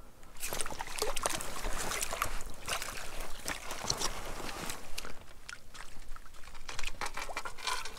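Water splashing and dripping from a landing net with a rubberized bag as it is scooped out of shallow lake water with a small grayling in it, a steady run of short splashes and clicks.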